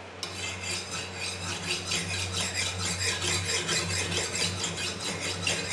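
Steel katana blade being sharpened on a whetstone, scraping across the stone in repeated back-and-forth strokes.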